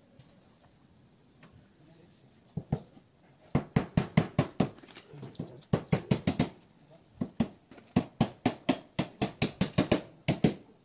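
A long string of short animal calls, several a second in clusters, starting a couple of seconds in and stopping just before the end.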